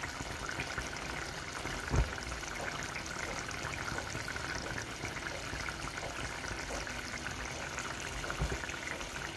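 Coconut milk for a rundown at a rolling boil in a pot, a steady bubbling and frothing. A single low knock sounds about two seconds in.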